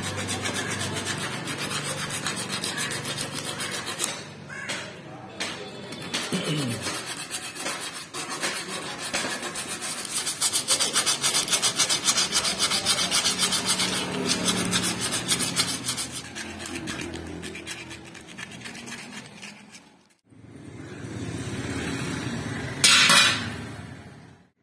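Hand sanding of a steel shovel socket clamped in a bench vise with a strip of abrasive, taking off rust: fast back-and-forth rubbing strokes, densest in the middle. After a cut near the end there is a short different stretch with one sharp, loud burst.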